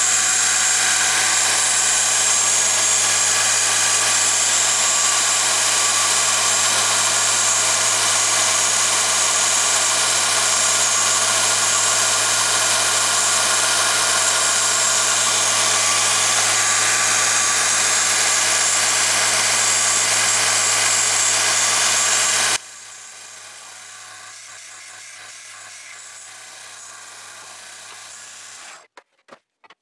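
A 1x30 belt grinder running steadily with a coarse 60-grit Norton Blaze belt, grinding the steel bevel of a 1930s Stanley plane iron. About three-quarters of the way through, the sound drops suddenly to a much quieter steady hum. That hum stops shortly before the end, leaving a few faint clicks.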